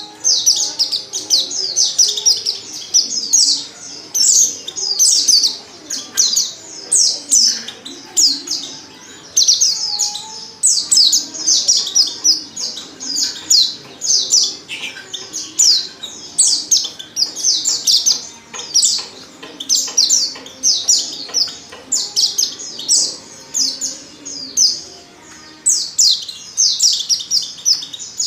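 Female pleci (white-eye) calling: quick runs of high, thin, downward-slurred chirps, one burst about every second. This is a lure call meant to set male white-eyes singing.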